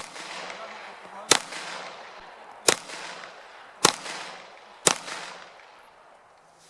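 Five single gunshots fired at a slow, slightly uneven pace, about a second or so apart, each followed by an echo that dies away.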